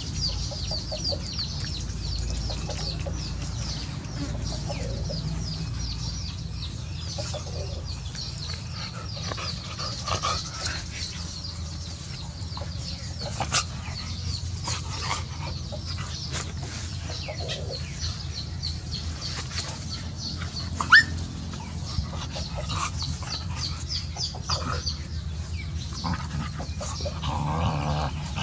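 Puppies playing with a person and their mother, making small dog sounds, with chickens clucking in the background and one sharp click about three quarters of the way through.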